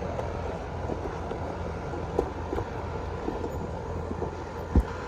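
5-ton Lennox Elite central air conditioner's outdoor unit running with a steady low hum and fan noise. A few light clicks and a thump come near the end.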